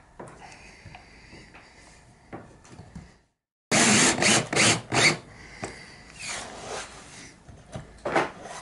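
An aluminium router insert plate being handled and settled into its recess, with light scrapes and clicks. About three and a half seconds in, a cordless drill drives screws through the plate in three short loud bursts, followed by quieter handling and a knock near the end.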